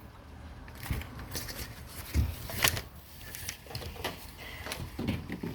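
Irregular light clicks and knocks, about a dozen, over a faint steady hiss.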